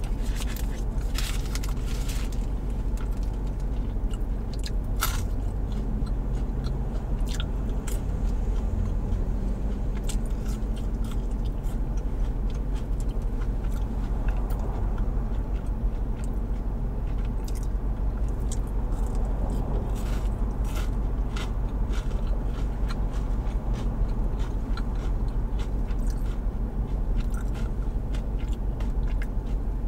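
Close-up mouth sounds of chewing and biting a plant-based cheeseburger and crispy tater tots, with many short crunches and wet clicks scattered through, over a steady low hum.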